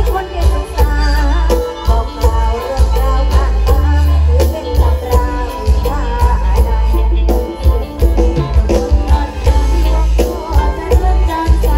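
Live Isan folk band music over a loud PA, with a klong king drum troupe playing and a heavy bass beat.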